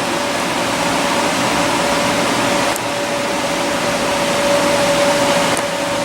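Steam boiler plant running: a loud, even rushing noise with a steady hum underneath.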